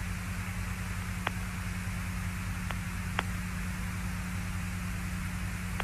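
Steady hiss and low hum of the Apollo Moon-to-Houston radio link with no one talking, broken by three short clicks, one a little over a second in and two close together near the middle.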